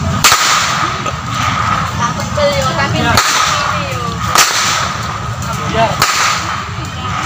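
A long pecut whip cracked four times, each a sharp, loud crack, spaced one to three seconds apart, over a steady high-pitched hum.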